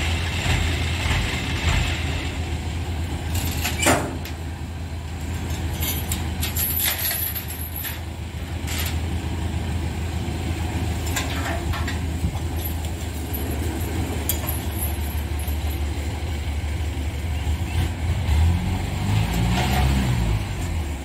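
A heavy engine idling steadily, revving up and back down once near the end. Sharp metal clanks come from the steel loading ramps being handled, the loudest about four seconds in.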